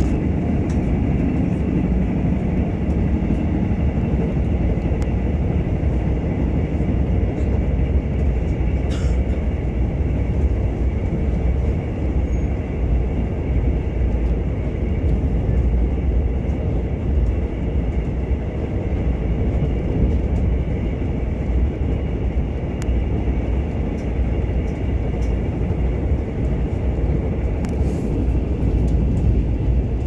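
Mugunghwa-ho passenger train running along the track: a steady low rumble of wheels and carriage, with a few faint clicks along the way.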